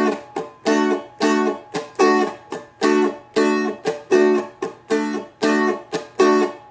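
Seagull Merlin, a four-string fretted dulcimer, strummed on one chord in a steady rhythm: about two full strums a second with short muted chops between them, the mutes made by easing the fretting hand's pressure. The playing stops near the end.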